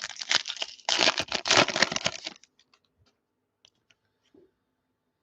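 A trading-card pack wrapper being torn open and crinkled in the hands, a dense crackling with many small clicks. It stops about two and a half seconds in, leaving a few faint ticks.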